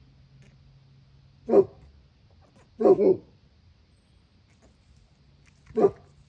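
Livestock guardian dog barking: a single bark about one and a half seconds in, a quick double bark about three seconds in, and another single bark near the end.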